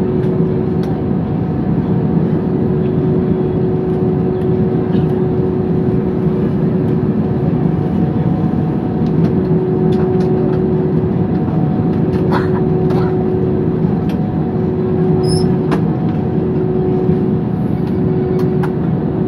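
Airbus A320 cabin noise while taxiing: the engines at idle give a steady rumble with a constant hum, with a few faint clicks and rattles in the cabin.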